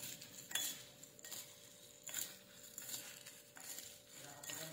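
Crispy dried baby shrimp rustling and crackling as they are tossed with plastic spoons in a ceramic bowl: faint, irregular strokes with light spoon clicks.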